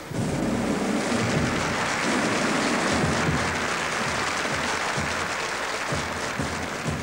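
Audience applause in a large hall that starts suddenly and holds steady, with slow, low drum beats joining underneath from about halfway through as the drum band marches in.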